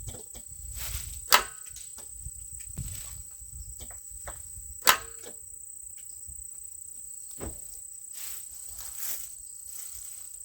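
Sharp metallic clicks and clinks from tools working on the tractor's battery terminals; two are loud and ring briefly, about three and a half seconds apart. A steady high insect trill runs underneath.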